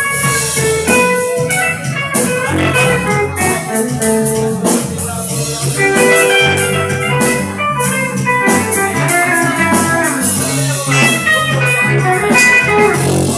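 Live band playing an instrumental passage: electronic organ or keyboard chords with guitar over bass and drums, a steady beat throughout.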